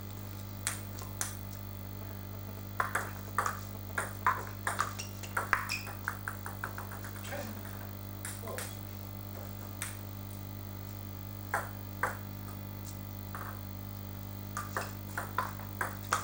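Table tennis ball clicking on the table and bats. In the middle a ball bounces to rest in quicker and quicker taps, and near the end a rally starts with evenly spaced hits.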